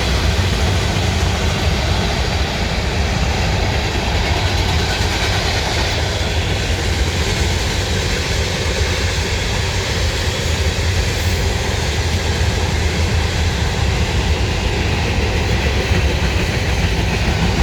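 Freight train rolling past, its cars making a steady, loud rumble on the rails.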